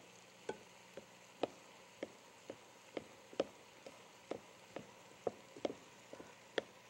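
Wooden spoon knocking and clicking against a glass mixing bowl while stirring a chunky chopped filling: short, sharp taps at an irregular pace of about two a second.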